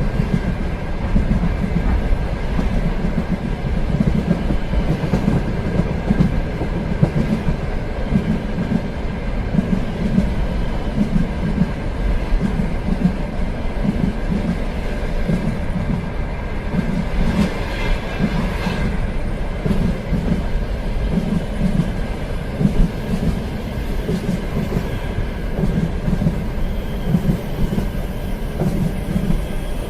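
Train running along the rails, a steady low rumble with an uneven rhythmic clatter of the wheels over the track. A brief higher-pitched scraping noise rises and fades about two-thirds of the way through.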